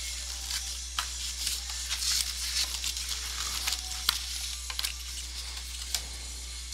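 Cardboard trading-card box being handled and opened: rustling and scraping of the box and its lid sliding off, with scattered light clicks and taps.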